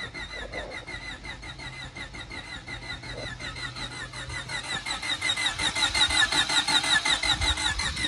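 Honda Civic engine cranked over on its starter without firing, an even churn of about six strokes a second that grows louder in the second half: the engine is being turned over to build oil pressure before its first start.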